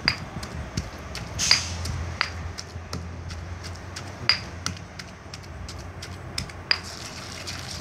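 Stone pestle pounding and working wood apple pulp and jaggery in a stone mortar: irregular taps and clinks of stone on stone, with a few sharper knocks.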